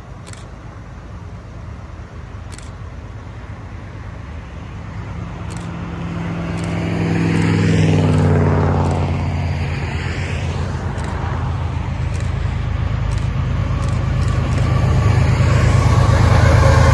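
Diesel freight locomotives approaching and passing, a low engine drone that grows louder. It swells about halfway through with a falling pitch, then builds again to its loudest near the end.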